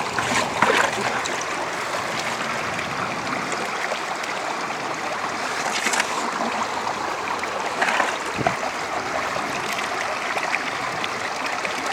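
Water running steadily through a metal gold-prospecting sluice box set in a shallow stream, with a few short sharp sounds near the start and in the middle.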